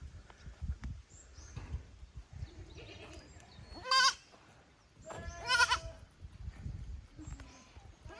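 Kid goats bleating: a short bleat about four seconds in, then a longer, wavering bleat about a second later, with another starting right at the end.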